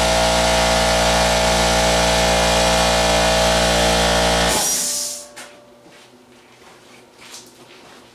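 Air compressor running steadily, then shutting off abruptly about four and a half seconds in with a short sharp hiss of released air. A few faint clicks follow.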